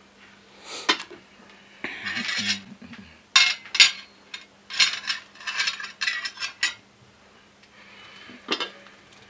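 Metal spoons and forks clinking against ceramic plates as plates of rice are set down and moved on a table: a string of sharp clinks, thickest in the middle, with a short scrape about two seconds in.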